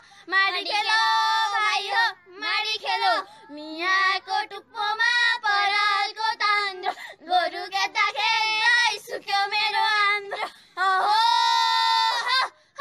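High young female voice singing a Nepali threshing song, unaccompanied, in drawn-out phrases with short breaks and a long held note near the end.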